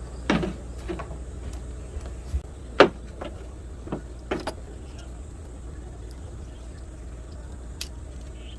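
A few scattered sharp clicks and knocks of small objects being handled, the loudest about three seconds in, over a steady low hum.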